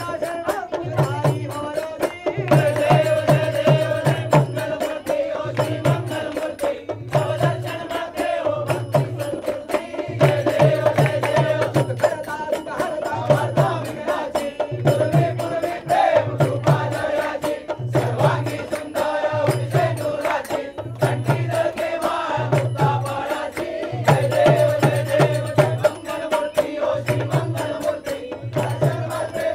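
Hindu devotional music for an aarti: chanted singing over a sustained drone and a steady, regular low drum beat.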